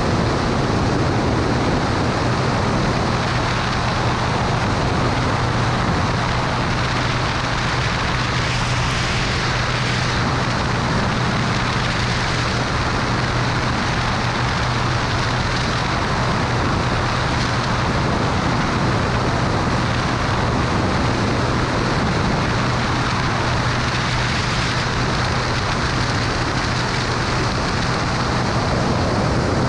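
Cessna 210 Turbo Centurion's engine and propeller running steadily, a constant low drone under heavy rushing air noise.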